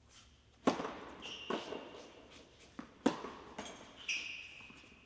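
Tennis ball struck by a racket on a serve about half a second in, then more hits and bounces as the rally goes on, each ringing on in the indoor hall. Two brief high squeaks of tennis shoes on the hard court come in between.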